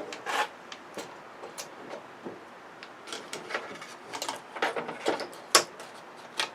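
Irregular clicks, taps and clatter of an LED television's sheet-steel and plastic parts being handled and taken apart, with one sharp knock about five and a half seconds in.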